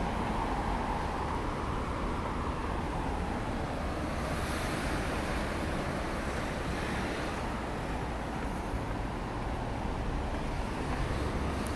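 Steady city street ambience: an even wash of road traffic noise with a low rumble.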